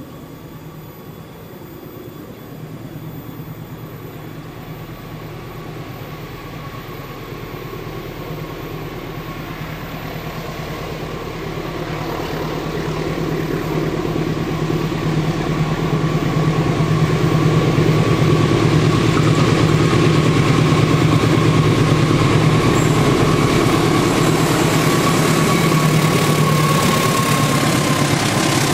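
CC206 diesel-electric locomotive hauling a passenger train, its engine drone growing steadily louder as it approaches, then holding loud over the last ten seconds as it passes close.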